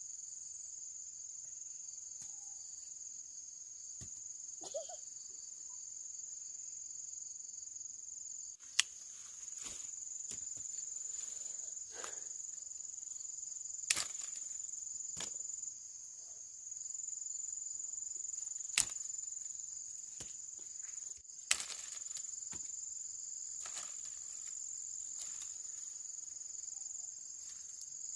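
Steady high-pitched insect chorus, with four sharp snaps or clicks standing out over it.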